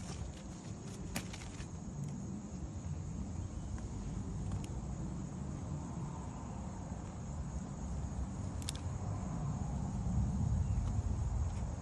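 Outdoor garden ambience: a steady low rumble with a few faint sharp clicks, one about a second in and one near the nine-second mark.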